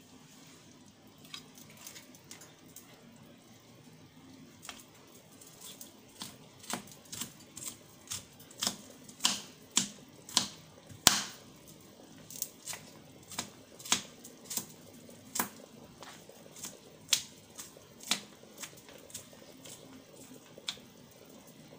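Sharp, irregular pops and crackles of food cooking in pans on the stove, scattered at first and coming two or three a second through the middle, over a faint steady hum.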